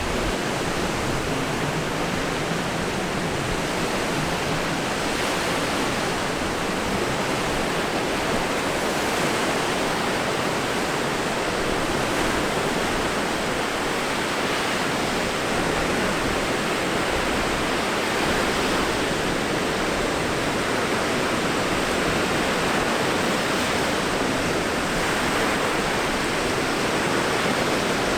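Surf breaking on the shore with strong wind, one continuous even rush of noise with no distinct crashes standing out.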